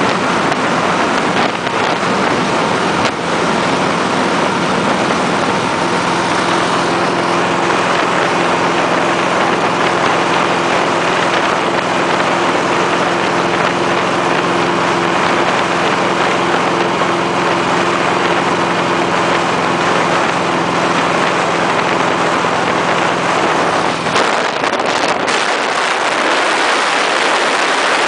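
Strong wind rushing over the camera microphone on a Harley-Davidson motorcycle at highway speed. Under the wind the motorcycle's V-twin engine drones steadily at cruise from about six seconds in, fading out near the end.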